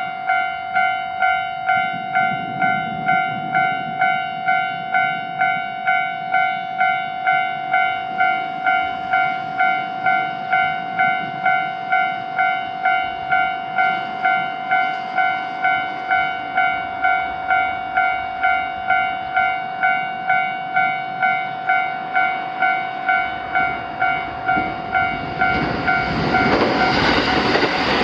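Japanese railroad crossing warning bell ringing its 'kan-kan' signal, an even, ringing tone struck about twice a second. About 25 seconds in, a passing train's running noise swells up and nearly covers the bell.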